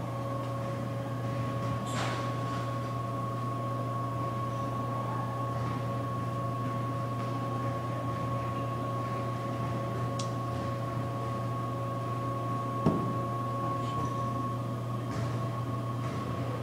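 Steady electrical or mechanical hum with a faint high whine, as from an appliance or ventilation unit, with a few light clicks and a single short knock about thirteen seconds in.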